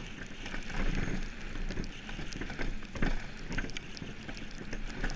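Monotype XV iceboat runners rumbling and hissing over lake ice under sail, with frequent small clicks and knocks and a sharper knock about three seconds in.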